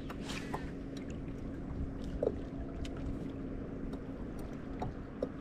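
Low, steady wind and water noise on the microphone out on the lake from a small fishing boat, with a faint steady hum underneath. A few light ticks and a brief hiss near the start.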